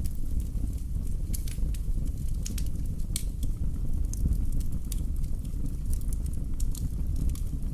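Wood fire burning in a fireplace: a steady low rumble of flames with scattered sharp crackles and pops of burning logs.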